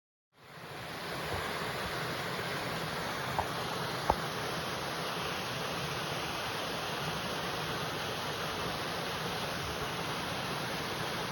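Small woodland cascade: water rushing steadily, fading in just after the start. Two brief clicks stand out a few seconds in.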